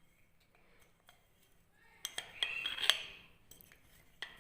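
Spoon and cup clinking: a few light clicks, then a cluster of sharp clinks with a brief ring about two seconds in, and one more click near the end.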